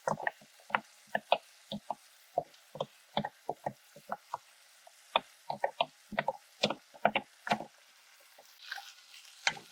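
Spoon stirring rice in a cast iron pot: irregular knocks and scrapes against the pot, two or three a second, with a short pause near the end.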